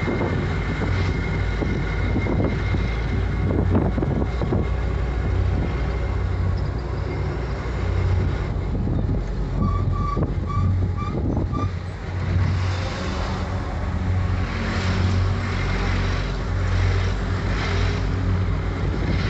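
Bus engine and road noise heard from on board, a steady low drone with tyre and wind rush. About ten seconds in, a quick run of about six short high beeps.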